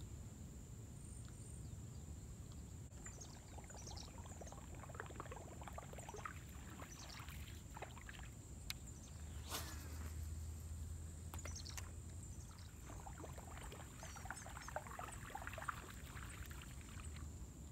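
Faint outdoor ambience: a steady low rumble of wind on the microphone, a thin steady high whine, and scattered faint chirps.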